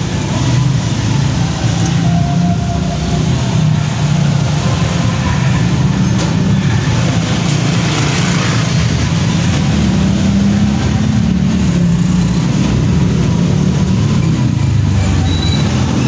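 Small motor scooters running and riding past close by, their engines making a continuous, wavering drone.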